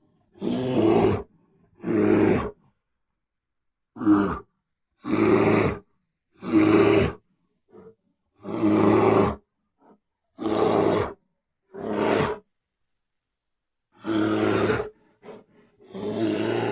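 Bear growling in a string of about ten short roars, each half a second to a second long, with silence between them.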